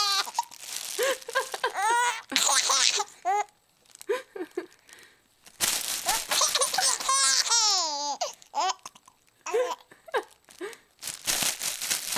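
Plastic crinkled in short bursts, each answered by a baby's hearty laughter in high, rising-and-falling peals; the longest run of laughter comes about halfway through.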